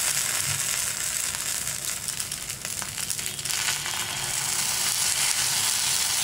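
Batter sizzling in the hot oiled cups of a cast kuzhi paniyaram pan as it is ladled in, a steady high sizzle with a brief crackly dip about halfway through.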